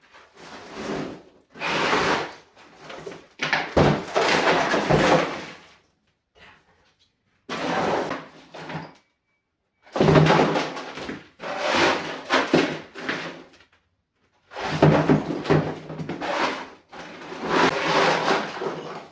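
Old wooden floorboards being pried and pulled up: repeated scraping and knocking of wood, in stretches of one to two seconds with short gaps between.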